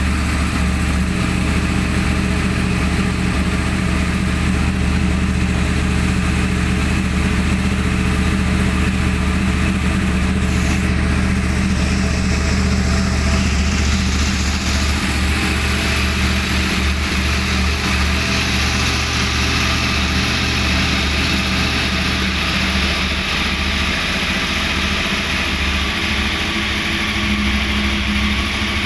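2013 Yamaha R1's crossplane inline-four engine idling steadily through its stock exhaust, holding an even pitch with no revs.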